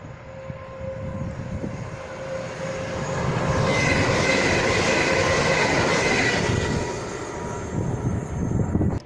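A train passing along the main line, its rush of wheels on rail swelling to a peak about four seconds in and dying away a few seconds later, with a steady high whine over it.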